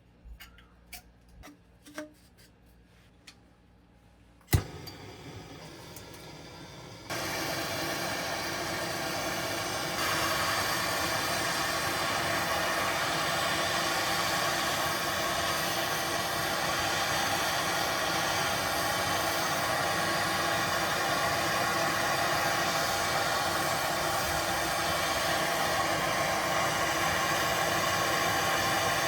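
A few small handling clicks, then a sharp click about four and a half seconds in as a hand soldering torch lights. Its flame hisses steadily, stepping up louder twice as it is turned up while heating a pipe joint for soldering.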